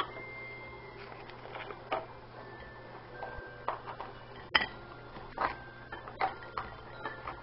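Scattered light taps and clinks of a ceramic plate and a small cardboard box being handled as chocolate-covered marshmallows are packed, the sharpest about four and a half seconds in. A faint steady low hum runs underneath.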